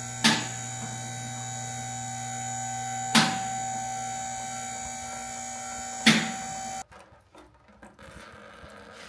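Steady electrical hum with three sharp clicks about three seconds apart; the hum cuts off suddenly near the end, leaving a faint background.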